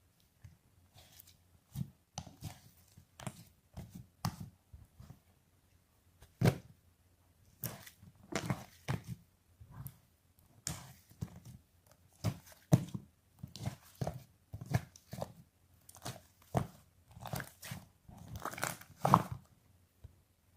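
Irregular rustling, scratching and light knocks close by, in quick clusters with short pauses between them.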